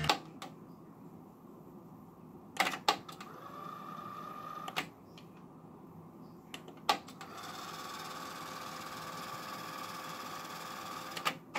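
Aiwa AD-R500 cassette deck's transport keys clicking and clunking as they are pressed: the playback music cuts off with a click at the start, a few more mechanical clunks follow, and the tape mechanism whirs steadily for stretches in between.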